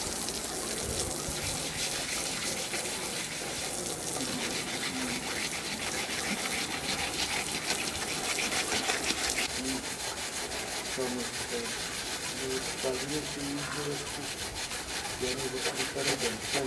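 Water spraying from a garden hose nozzle onto a painted board, hissing steadily. From about a third of the way in, a hand scrubs rapidly back and forth over the wet painted surface.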